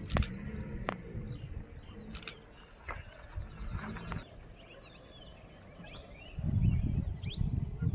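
Many small birds chirping in open forest, with short high calls throughout. From about six seconds in, a louder low rumble from the moving open safari jeep takes over.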